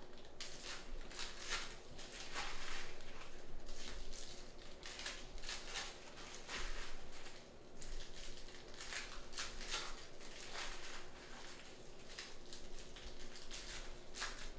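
Trading card packs and cards being handled: a run of short crinkling and rustling sounds from pack wrappers being torn open and cards sliding against each other, over a faint steady hum.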